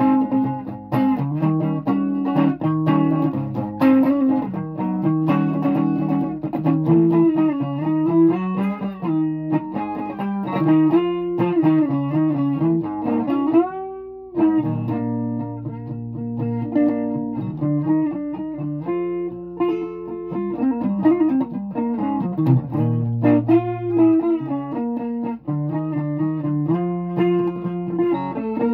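A guitar playing a melody over changing chords, with one note bent upward about halfway through.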